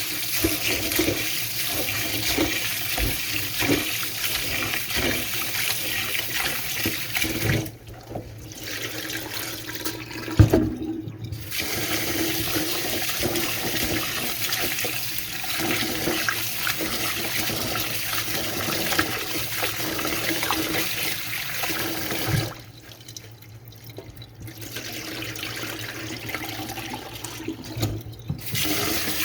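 Kitchen tap running, water pouring over basmati rice being rinsed in a bowl. The flow stops briefly about eight seconds in and again for a few seconds past the twenty-two second mark, with a single knock shortly after the first stop.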